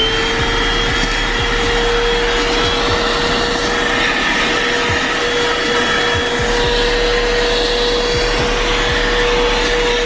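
Corded 12-volt handheld car vacuum cleaner running steadily, its motor whine holding one pitch over the rush of suction, as the brush nozzle works over a fabric car seat.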